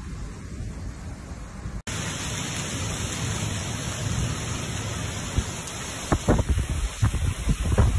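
Heavy wind-driven rain: a loud, steady hiss of downpour, following a quieter low rumbling noise in the first two seconds. From about six seconds in, wind gusts buffet the microphone.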